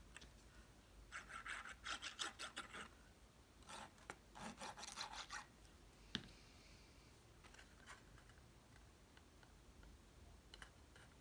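Cardstock being handled and rubbed, quick rasping strokes in two short spells, then a single sharp click about six seconds in; faint after that.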